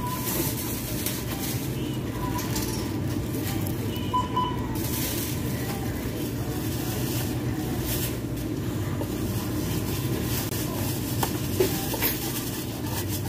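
Supermarket background noise at the self-checkout lanes: a steady low hum with a few short electronic beeps in the first half.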